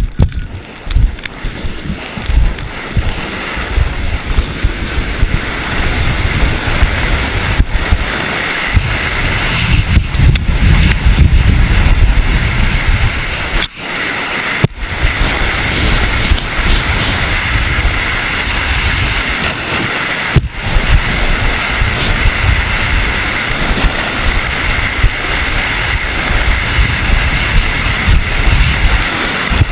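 Wind buffeting a helmet-mounted GoPro on a skier at downhill racing speed, a loud rumbling rush over the hiss of skis on hard snow. The noise drops out sharply for a moment a few times.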